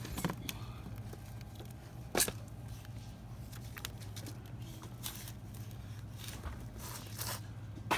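Steady low hum of a store's background with scattered clicks and rustles of products being handled on a shelf; the sharpest click comes about two seconds in.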